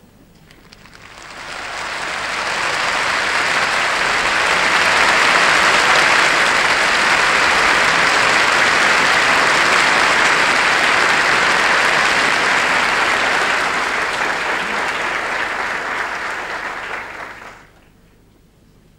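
Concert audience applauding: the clapping swells over the first couple of seconds, holds steady, then dies away quickly near the end.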